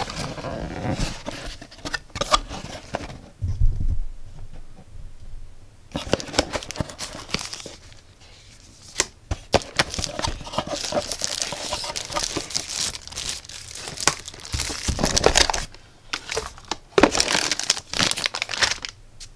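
Tissue paper and plastic bags of cables crinkling and rustling in irregular bursts as a boxed multimeter is unpacked, with a quieter pause of about two seconds a few seconds in.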